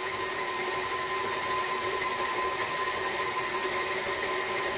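KitchenAid stand mixer running steadily as it creams butter and sugar: a constant motor whine over a low hum, with no change in speed.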